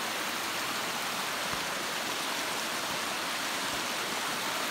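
Whitewater of a mountain stream rushing steadily over rock ledges at the top of a waterfall.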